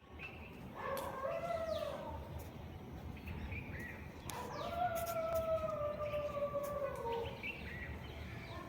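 A dog howling: two long howls, a short one about a second in and a longer one of about three seconds that sags in pitch at its end, with a few short bird chirps in between.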